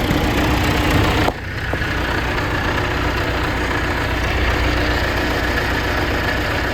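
John Deere 450C crawler dozer's diesel engine running steadily. The sound breaks off abruptly about a second in and picks up again, running on evenly with a faint steady whine over the engine.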